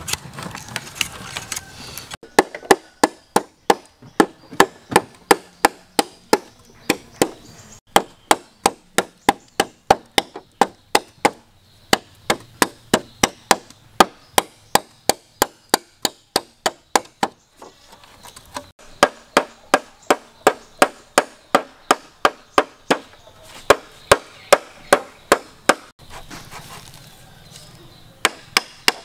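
A heavy chopping blade striking bamboo in quick, even blows, about three a second, cutting into the poles. The chopping comes in long runs with a couple of short pauses.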